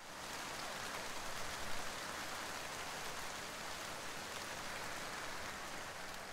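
Steady rain falling: an even hiss that eases slightly near the end.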